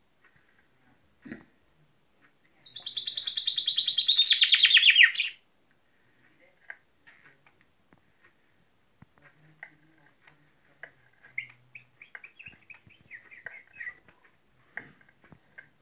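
Common chaffinch singing one full song of about two and a half seconds a few seconds in: a fast, loud trill that drops in pitch toward its end. Soft chirps and short calls follow.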